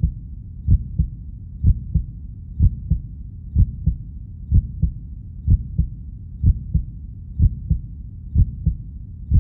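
Heartbeat sound effect: a slow, steady lub-dub of low thumps, about one beat a second, over a steady low rumble.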